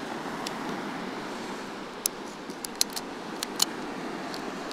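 A handful of sharp small clicks as a Leica M6 film camera is handled while being loaded, its metal back and parts clicking, mostly in the second half. Under them is a steady hiss of surf.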